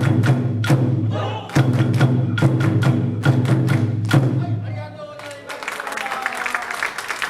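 Bon odori dance music with big taiko drum strikes about three a second, ending about five seconds in; crowd noise follows.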